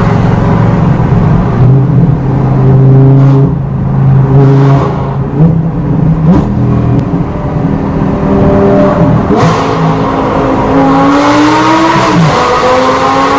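Lamborghini Gallardo LP560-4's V10 through an Armytrix exhaust, heard from inside the cabin, revving and pulling through the gears, its pitch climbing and then dropping at each shift. A few sharp cracks break in along the way.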